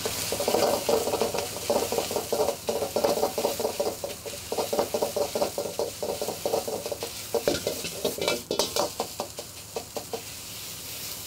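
Metal ladle scraping and clacking rapidly against a wok as egg and rice are stir-fried, over a steady sizzle of hot oil. The ladle strokes thin out near the end, leaving mostly the sizzle.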